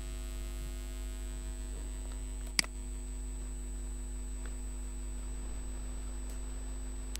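Steady electrical mains hum on the recording, with one sharp click about two and a half seconds in and a couple of faint ticks later.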